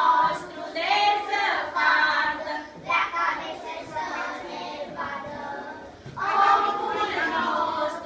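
A group of young children singing a song together in unison, in short phrases of about a second each, softer for a couple of seconds midway.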